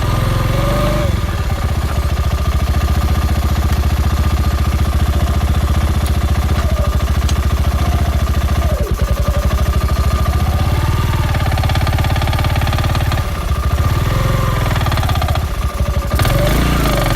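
Spy Racing 350 F1 engine running with a rapid, even firing beat and a steady high whine, the revs rising and falling slightly a few times. The owner is chasing a suspect knocking noise from this engine.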